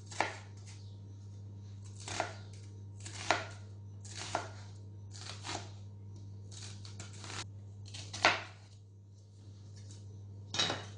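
Chef's knife slicing a red onion on a wooden cutting board: the blade knocks on the board about once a second, with a quick run of cuts near the middle and the loudest chop about eight seconds in.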